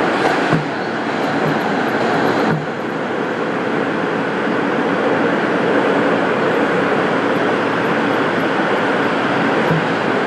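Steady, loud running noise of a vehicle in motion. The level drops slightly twice in the first few seconds, then stays even.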